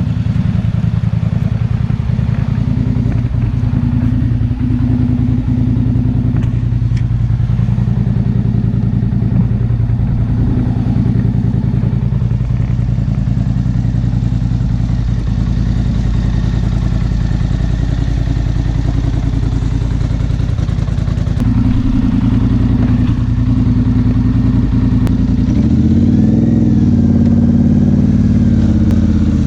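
Polaris Sportsman 850 High Lifter ATV engine running through a Big Gun exhaust, tuned to Big Gun's recommended base settings, as the quad is ridden. The engine note holds fairly steady, then the revs rise and fall a few seconds before the end.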